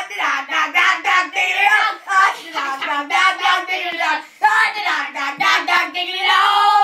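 A child singing in a high voice: short sung syllables, then a longer held note near the end.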